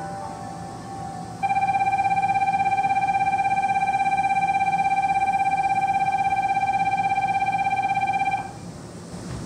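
Electric departure bell ringing steadily with a fast buzzing ripple, starting about a second and a half in and cutting off sharply about seven seconds later, signalling that the train is about to leave.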